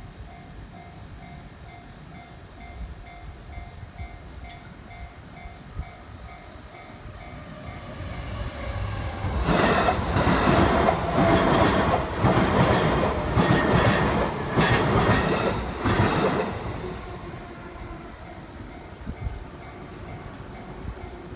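Japanese railroad crossing warning bell ringing in an even, repeating ding pattern while a JR Nambu Line electric train approaches and passes. The train is loudest for about seven seconds in the middle, with a quick run of clacks as its wheels cross the rail joints, then fades while the bell keeps ringing.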